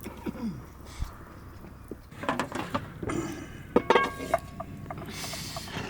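Clinks, knocks and scrapes of metal cookware and utensils, sparse at first and busier after about two seconds, with a short ringing clink about four seconds in.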